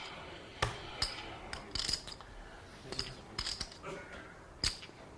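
Poker chips clicking together at a poker table: scattered short, sharp clacks, a few a second.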